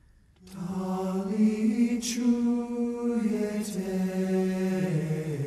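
Music with singing: after a brief pause, long held sung notes come in about half a second in and carry on.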